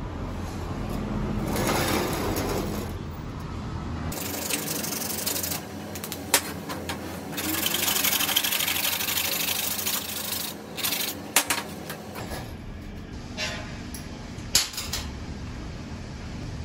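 Scraping hiss of an abrasive disc rubbed by hand across a block, in two long stretches with several sharp clicks. Before and after it there is a steady low hum, with a few light clicks near the end.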